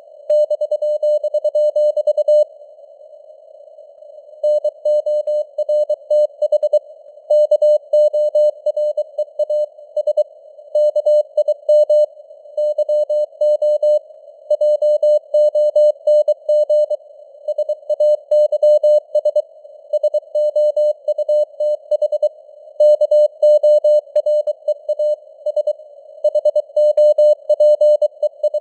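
Morse code at 23 words per minute: a steady mid-pitched CW tone keyed on and off in dots and dashes, with a narrow band of hiss around it standing in for radio noise. The keying pauses for about two seconds, starting a couple of seconds in, then runs on.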